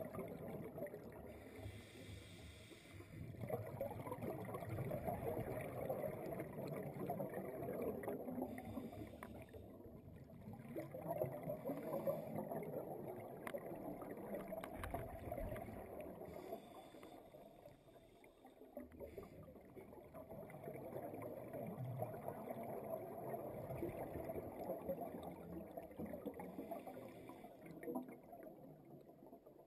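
Scuba breathing through a demand regulator underwater. Each breath is a short hiss on the inhale, then a long rumbling stream of exhaled bubbles, repeating several times.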